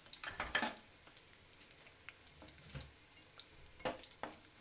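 Wooden spatula stirring almonds frying in oil in a kadai: a quick run of scrapes and knocks against the pan in the first second, a few single ones later, over a faint sizzle of frying.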